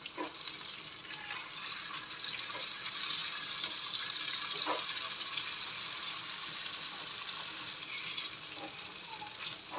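Salmon steaks frying in hot oil in a nonstick pan: a steady sizzle that swells for a few seconds in the middle as the pieces are turned with metal tongs, with a few light clicks of the tongs.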